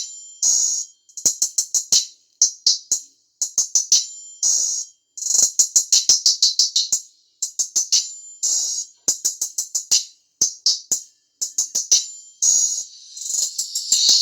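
Music played through a small tweeter, so only its top end comes through: fast ticking hi-hat-like beats in short runs, with hissy bursts between them and almost no bass.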